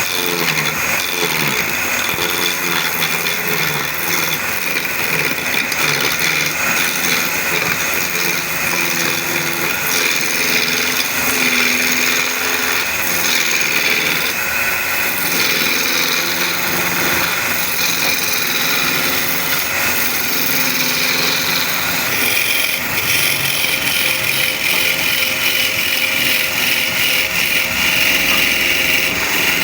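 Wood lathe running steadily while a turning tool cuts the spinning wood for a furniture leg.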